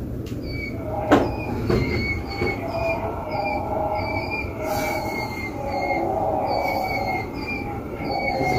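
A 60-inch KDK industrial ceiling fan running with a steady rumble and a high metallic squeal that repeats about three times a second. A few sharp clicks come in the first two seconds, the loudest about a second in.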